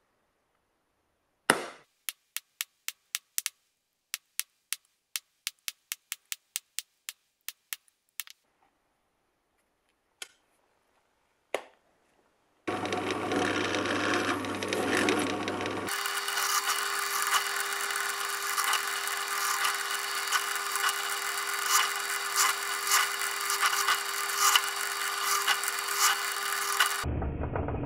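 A punch marking a copper sheet, a string of sharp clicks at about three a second. Then a drill press runs and bores a row of holes through the copper: a steady motor tone under a dense, grinding cutting noise.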